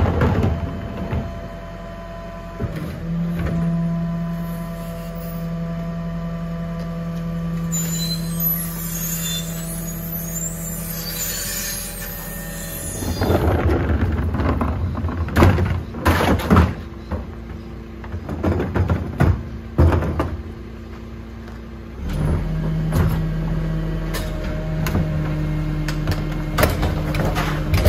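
Rear-loading Garwood compactor garbage truck at work. Its engine drones steadily under hydraulic load, with a hiss of released air partway through. Then comes a stretch of irregular bangs and clatter as wheelie bins are handled at the back, and the steady drone returns near the end as the bin lifter raises bins.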